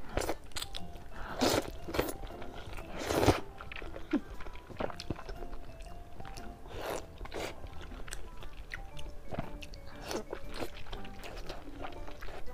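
Close-miked mouth sounds of eating: slurping wide flat noodles, then chewing, in a run of short loud slurps and bites, the loudest about three seconds in. Soft background music with held notes plays underneath.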